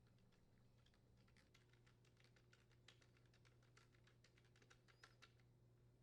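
Faint, rapid small clicks of a Phillips screwdriver turning the mounting screws that fasten a new door latch to a dishwasher control panel, a few clicks a second, starting about a second and a half in and stopping near the end, over a low steady hum.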